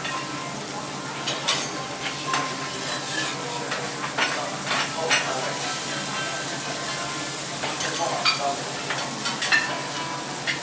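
Food sizzling on a teppanyaki iron griddle, with a steady hiss. Metal spatulas scrape and clack against the hot plate now and then, about a dozen sharp strikes at uneven intervals.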